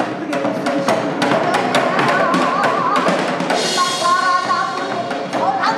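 Pansori singing by a woman, with a strong wavering vibrato and then a long held note, over many sharp drum strokes.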